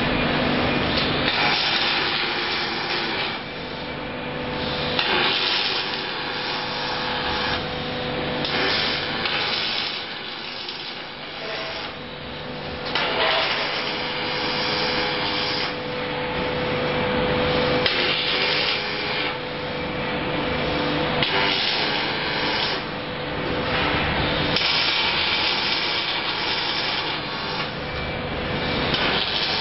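Robotic MIG welding: the welding arc crackling and hissing in bursts of one to a few seconds as the robot lays one weld after another, with a steady machine hum underneath.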